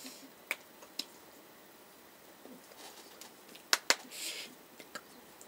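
A few sharp taps and clicks from hands striking and brushing each other while signing, the loudest a quick pair near the middle, followed by a short breathy hiss, against quiet room tone.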